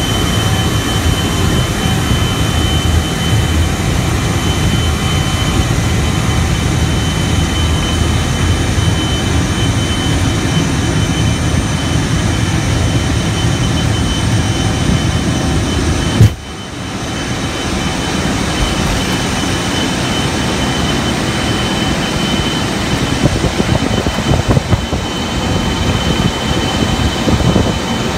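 Cockpit noise of a KC-135 tanker's four jet engines at take-off power during the take-off roll and lift-off: a loud, steady rumble with a thin high whine over it. About sixteen seconds in comes one sharp thump, and the noise drops briefly before building back up.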